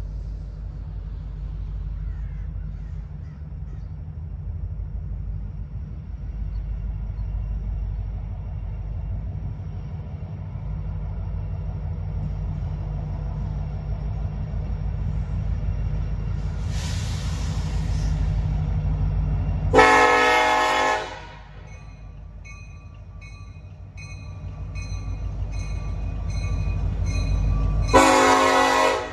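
Diesel freight locomotive approaching with a low rumble that grows louder, sounding its horn: a faint blast, then two loud blasts about eight seconds apart near the end. A bell rings in a quick steady rhythm after the first loud blast.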